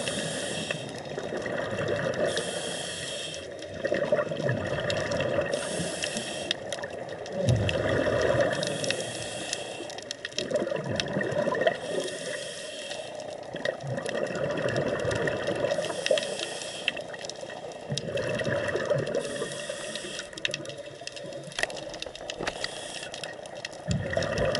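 Scuba diver breathing through a regulator underwater, recorded close by. Each breath is a high hiss on the inhale, then a rushing burble of exhaust bubbles, about one breath every three and a half seconds.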